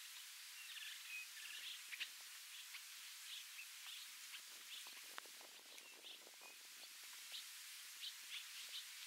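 Quiet bush ambience with small birds chirping again and again, and soft crackling and rustling around the middle.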